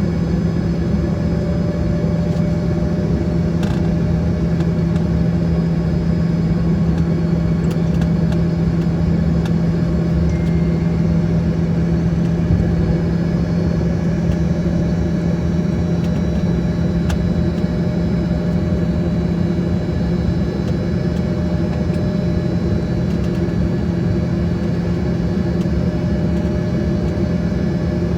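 Steady cabin drone of an Embraer ERJ-145 regional jet's rear-mounted Rolls-Royce AE3007 turbofans running. It is a strong low hum with faint high whining tones above it, and a few faint clicks.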